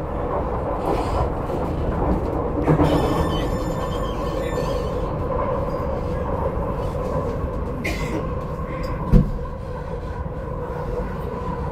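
Delhi Metro train running, heard from inside the carriage: a steady rumble of wheels on the rails under a steady hum, with a single thump about nine seconds in.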